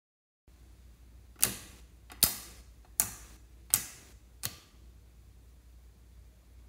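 Fingertips pressing into and pulling out of clear slime in a glass dish, making five sharp, sticky pops about three-quarters of a second apart.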